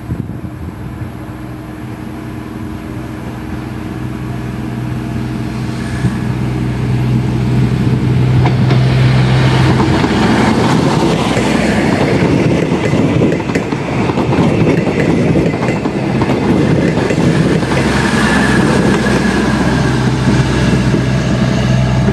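YIA airport diesel multiple-unit train approaching, growing steadily louder over about ten seconds with a steady low engine hum. It then passes close by, its wheels clattering over the rail joints.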